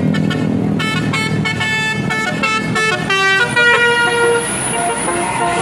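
Bus 'telolet' multi-tone Basuri musical air horn playing a tune: a quick run of short stepped notes from about a second in, then longer held notes.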